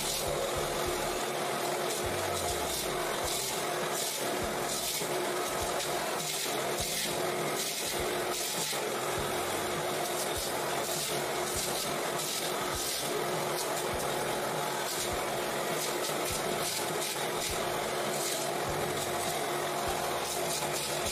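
Electric wood jointer running steadily, its cutterhead planing the edges of pine boards as they are pushed across the bed.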